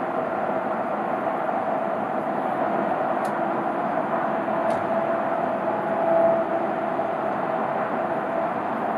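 Steady outdoor background noise with a faint hum, swelling slightly about six seconds in, and two faint high ticks near the middle.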